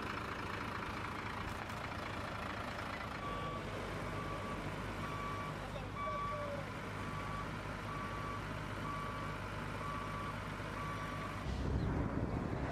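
A vehicle's reversing alarm beeping at a steady pitch, about once a second, over a low steady engine rumble. The beeping starts a few seconds in and stops shortly before the end, where the sound shifts to a louder low rumble.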